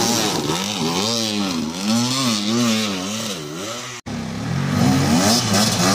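Engine revved up and down over and over in quick blips. About four seconds in it cuts off sharply, and an engine running at a steadier pitch follows.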